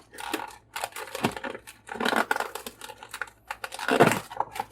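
Plastic packaging crinkling and crackling in irregular bursts as a toy figure's wing pieces are worked out of a plastic tray.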